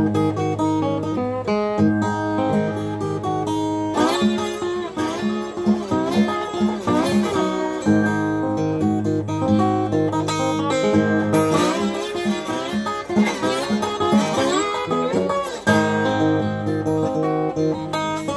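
1971 Guild D-35 steel-string acoustic guitar in open G tuning, played with a steel slide: picked and strummed chords over a steady low bass note, with the slide gliding the pitch up and down in two stretches a few seconds in and again past the middle.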